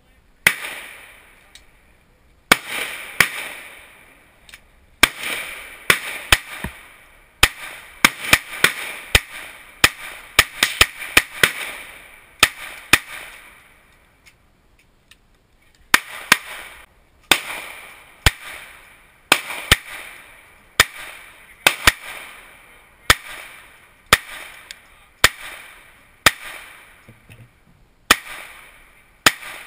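Semi-automatic pistol fired shot after shot, each a sharp crack with a short echo. The shots come quickly and unevenly at first, broken by a pause of about two seconds, then at a steady pace of roughly one shot a second. Fainter pops from other guns on the range are mixed in.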